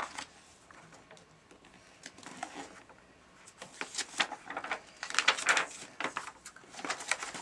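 Paper pages of a workbook being turned and handled, rustling in several short bursts.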